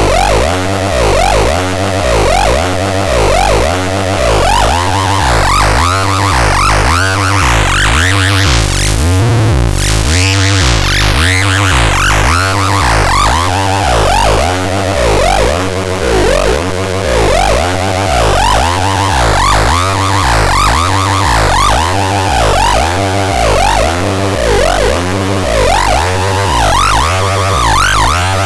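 Synthesizer playing a repeating low bass pattern under fast-wobbling higher tones. About nine seconds in, a filter sweep rises to a bright hiss, then falls back.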